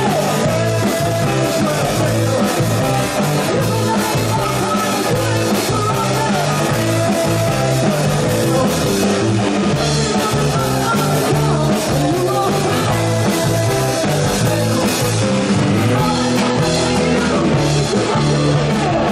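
Garage rock band playing loud and live: distorted electric guitar, bass and drums driving steadily, with a voice singing over them.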